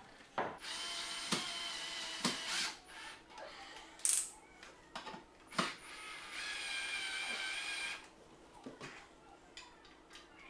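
Power drill running in two steady bursts with a high motor whine, about two seconds and then a second and a half, driving screws through a metal wall bracket into wall plugs. Sharp clicks and knocks come between the bursts.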